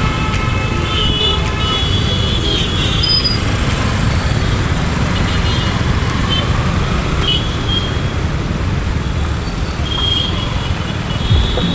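City traffic heard from a riding motorcycle: a steady low rumble of engine and wind, with short high horn toots from nearby vehicles several times.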